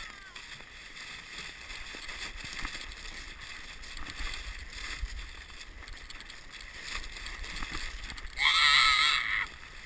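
Sled sliding fast over packed snow, a steady rushing hiss. About eight and a half seconds in, a loud, high-pitched yell lasts about a second.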